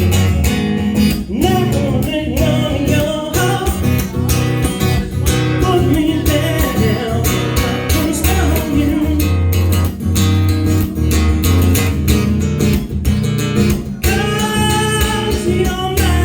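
Live blues music: electric guitar and bass over a steady beat, with a voice singing and gliding guitar lines.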